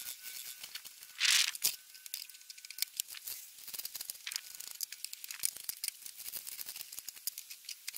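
Knife cutting iceberg lettuce on a plastic cutting board: a quick, irregular run of crisp cuts and taps as the blade goes through the leaves onto the board, with a louder crunch about a second in.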